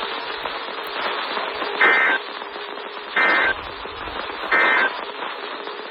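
Three short bursts of warbling EAS digital data tones, the SAME end-of-message ('NNNN') code that closes a weather-radio alert, about 1.3 seconds apart. Steady weather-radio receiver hiss underneath.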